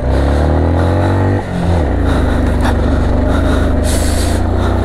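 Motorcycle engine accelerating under load on a climb, its pitch rising for about a second and a half, dropping briefly, then running steadier at a lower pitch.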